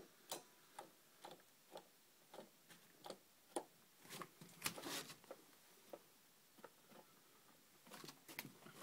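Faint, irregular light clicks and taps, about two a second, with a short flurry around the middle.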